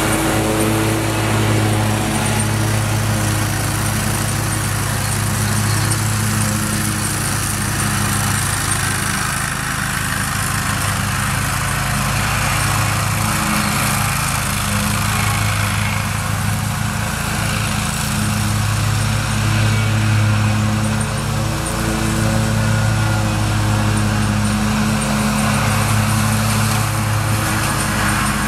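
John Deere 915B zero-turn mower with its 25-horsepower Kohler engine running steadily under mowing load, blades cutting grass. The engine note weakens somewhat in the middle as the mower moves off, then grows stronger again.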